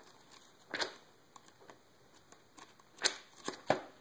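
Paper pages of a thick printed plans booklet being flipped and handled. There are short rustles a little under a second in and several more in quick succession near the end.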